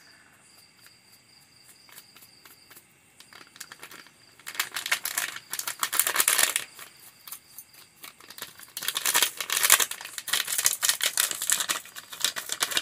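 Thin plastic packet crinkling as it is squeezed and shaken to pour powder out, in two spells of rustling: a short one about four and a half seconds in and a longer one from about nine seconds.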